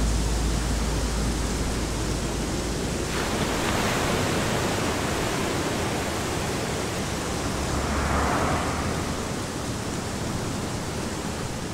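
Ocean surf washing onto a beach: a steady rushing noise with a swell about eight seconds in.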